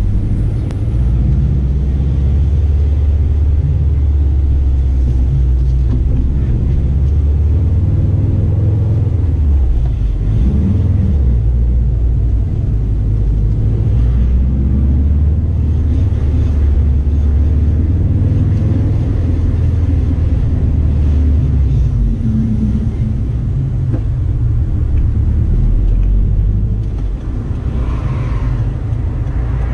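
2016 Subaru WRX STI's turbocharged 2.5-litre boxer four running through an SPT performance exhaust while the car is driven, a deep, steady rumble with the pitch and load shifting a couple of times.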